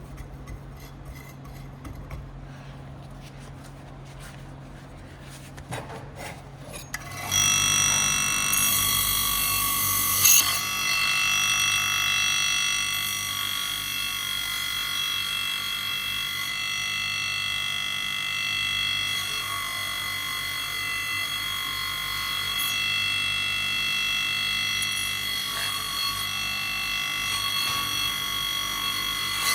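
Small clicks and handling noises over a low hum, then about seven seconds in a power tool starts and runs steadily on the steel saw-blade stock with a high, many-toned whine.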